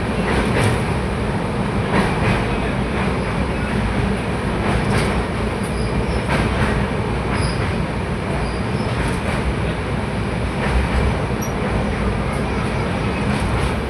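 Train running along the track: a steady rumble and rattle of wheels on rails, with irregular clacks every second or two and a few faint high wheel squeaks.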